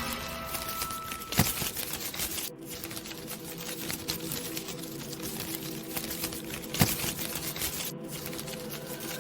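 Dense, irregular clicking and crackling, with two sharper, louder clicks about one and a half seconds in and again near seven seconds, over a faint steady hum.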